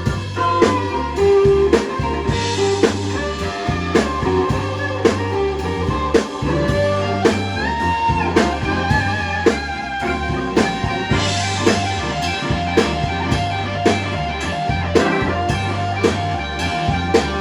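Live blues band playing an instrumental passage: an electric guitar lead with sustained, bent notes over bass and a steady drum beat.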